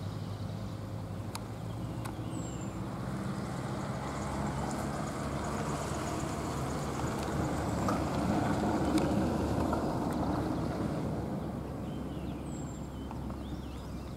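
Heavy diesel traffic on a hill road: a bus engine running as it pulls away at the start, then a truck's engine and tyre noise that swells to its loudest about halfway through and eases off. A few faint bird chirps.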